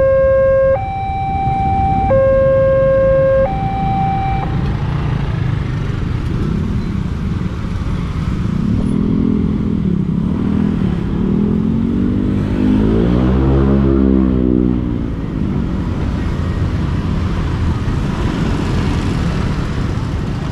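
Level-crossing warning alarm sounding from the horn speaker on the signal mast: a two-tone hi-lo alarm switching about every second and a half, which stops about four seconds in as the crossing clears. Then motorcycle and car engines pull away across the tracks, one revving up and down as it passes in the middle.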